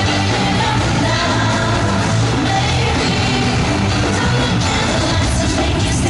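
Live pop music in a large arena, heard from the audience: women's voices singing into microphones over a loud backing with a steady beat.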